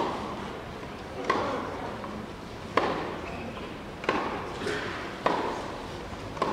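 Tennis rally on a clay court: a ball struck back and forth by rackets, six hits about one and a third seconds apart, each followed by a short echo around the stadium.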